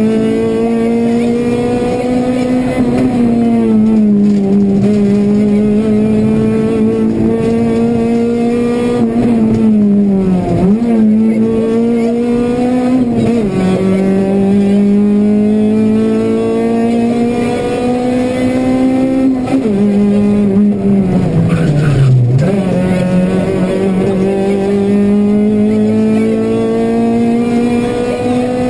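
Honda Civic Type-R rally car's 2.0-litre four-cylinder engine at high revs, heard from inside the cabin at full stage pace. Its pitch climbs steadily through each gear and drops at gear changes about ten and thirteen seconds in, then falls further around twenty seconds in before rising again.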